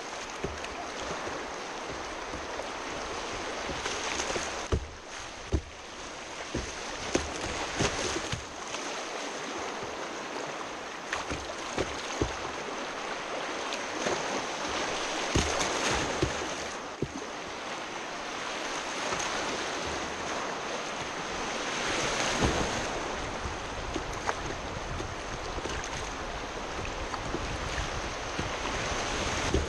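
River rapids rushing and splashing around the bow of a whitewater kayak, heard close to the water from the bow. The rush swells and eases every few seconds, with many sharp splashes and knocks scattered through it.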